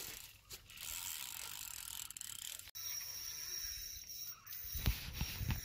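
Spinning reel ratcheting, its drag or handle clicking, as a hooked carp is played on a bent rod. A few dull thumps near the end.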